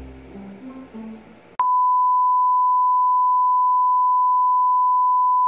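Background guitar music for about a second and a half, then it cuts off and a loud, steady single-pitch beep tone starts and holds, like an edited-in test tone.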